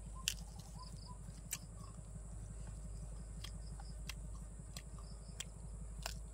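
Mouth sounds of eating a lettuce-wrapped mouthful: chewing and crunching heard as about seven sharp, scattered clicks over a steady low hum.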